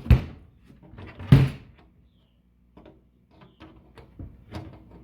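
Two loud knocks a little over a second apart, then several lighter clicks and taps: a PC case's bent metal panel being worked straight and fitted back on.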